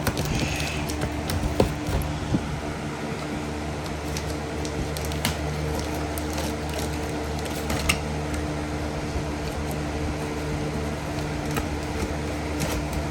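Steady low mechanical hum, like a fan or motor running, with a few short clicks and crinkles from packaging being handled.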